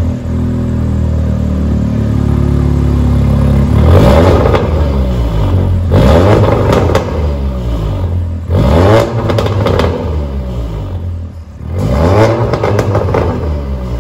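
Volkswagen Golf R's turbocharged four-cylinder idling, then revved four times, each a quick rise and fall in pitch. It breathes through a custom stainless-steel exhaust with Sirrush mufflers, with the exhaust valves closed.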